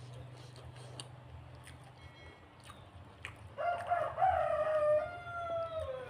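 A rooster crows once, a single long call of about two and a half seconds starting a little past halfway, its pitch held steady and then falling away at the end. Faint clicks from eating come before it.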